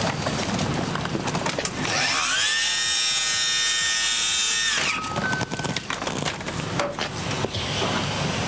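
Stryker Power-PRO XT power stretcher's battery-powered hydraulic leg system whining as the legs extend to the ground. The whine starts about two seconds in, rises in pitch, holds steady and cuts off sharply about three seconds later, with clicks and rattles of the stretcher frame before and after.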